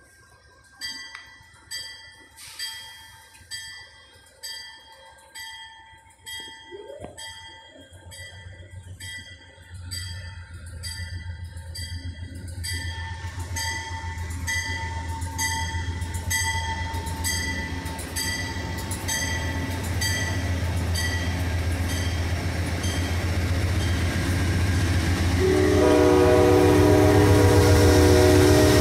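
An Amtrak push-pull train coming into the station. A bell rings about once a second while the low rumble of the train builds as it draws near. Near the end a loud multi-note horn chord blows as GE P42DC locomotive 145, in heritage Phase III paint, pushes past.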